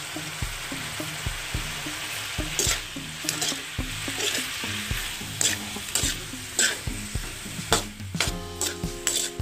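Food sizzling in an aluminium wok as a metal spatula stirs and scrapes through it, with irregular scrapes every half second to a second.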